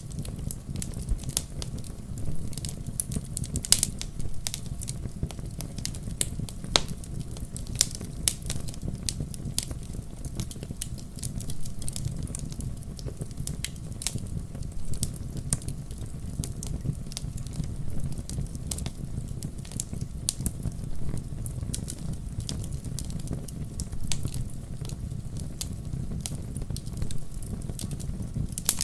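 Wood campfire crackling, with a steady low rumble of the flames and frequent sharp, irregular pops and snaps.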